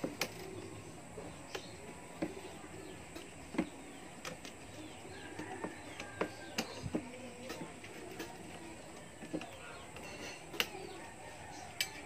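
Scattered sharp metal clicks and taps from a long hand tool working the hub of a washing machine motor's pulley on its shaft, with birds chirping faintly in the background.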